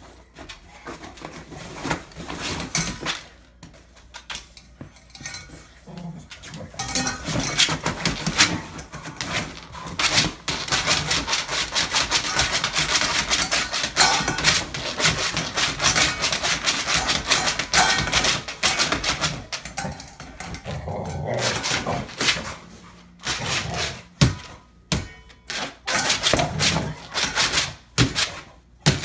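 A boxer dog pawing and digging in a wire crate, clattering and scraping an empty metal water bowl and rattling the crate. Scattered knocks at first, then a long stretch of continuous scraping and clattering, then separate knocks again near the end.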